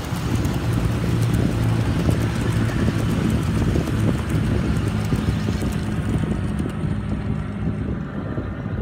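A miniature railway train running past on the track: a steady rumble of wheels with a low hum and many quick clicks, and wind noise on the microphone.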